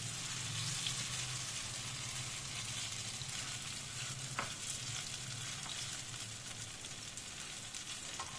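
Batter-coated paneer cubes sizzling in hot oil in a kadai, being shallow-fried until golden. A metal spatula turns them, with a few light taps and scrapes against the pan.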